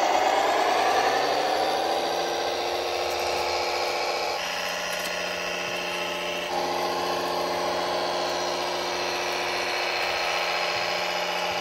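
Small electric motors and gear drives of radio-controlled model vehicles running with a steady whine. The pitch sinks over the first second or two, and the tone changes about four and a half and six and a half seconds in.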